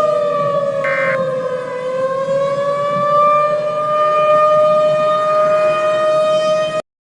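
Civil defense warning siren sounding a wail: its tone sags in pitch, climbs back up and holds steady, then cuts off suddenly near the end. This signals a tornado warning to take shelter.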